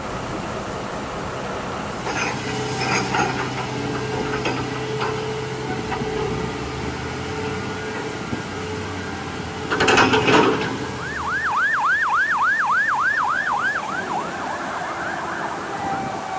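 Heavy diesel machinery running with a steady hum. About ten seconds in there is a short loud blast, then a fire engine siren in a fast up-and-down yelp, about three cycles a second, for three seconds. The wail falls in pitch near the end.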